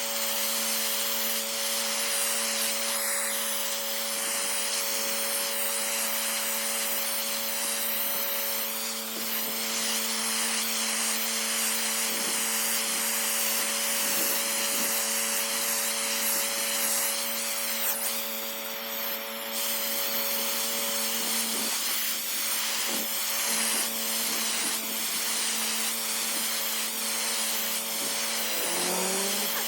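Pressure washer blasting a driveway: a steady hiss of the high-pressure water jet over the steady hum of the machine running.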